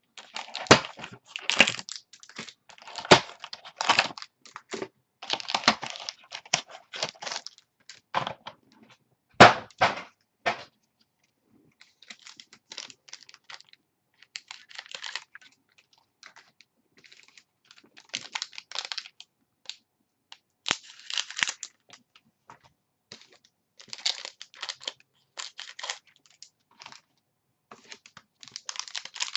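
A box of 2013 Playbook football cards and its packs being opened by hand: wrappers and cardboard crinkling, tearing and cracking in irregular bursts. The handling is busiest in the first ten seconds, goes quieter for a while, then picks up again near the end.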